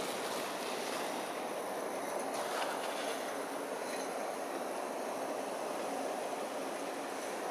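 G scale live steam tram and its coaches running along garden railway track: a steady rolling rumble with no clear beat.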